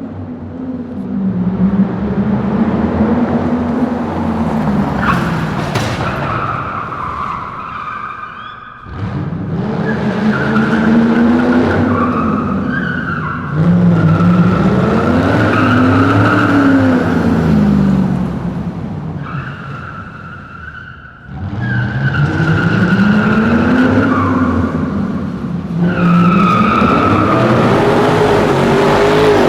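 Dodge Challenger's tyres squealing through several long runs as the engine revs up and down beneath them. The sound dips briefly between runs, about nine seconds in and again about twenty-one seconds in.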